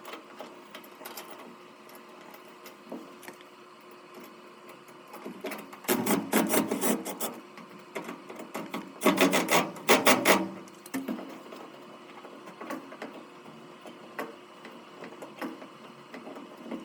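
Hand-fitting of a strain-relief cable guard onto a dryer power cord: rubbing and handling noise, with two stretches of rapid clicking and rasping about six and nine seconds in.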